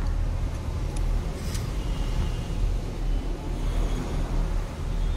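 Steady low rumble of a motor vehicle running nearby, with a few faint light metal clicks from the timing chain and tensioner being handled.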